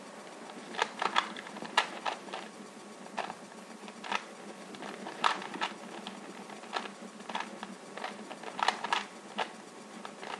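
Plastic 3x3 Rubik's cube being turned quickly by hand: irregular clicks and clacks as its layers snap round.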